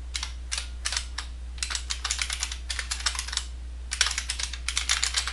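Typing on a computer keyboard: quick runs of key clicks, with a brief pause about three and a half seconds in, over a steady low hum.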